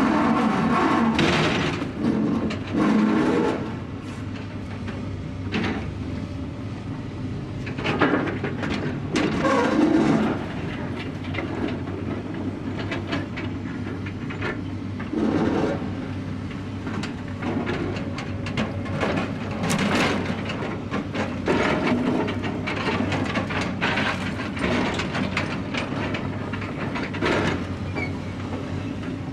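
Construction site ambience: a steady low machine hum under irregular knocks and clanks, heaviest near the start and again around eight to ten seconds in.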